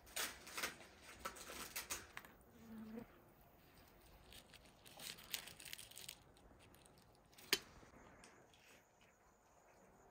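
Faint rustling and tearing of thin flatbread, with small clicks of a spoon against a metal dish while eating. The rustles come in clusters, with one sharp click a little past the middle.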